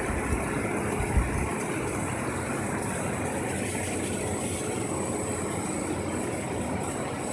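Twist dual-colour dog-treat extruder line running: a steady machinery hum from its electric motors and conveyor, with a thin high whine over it and a low bump about a second in.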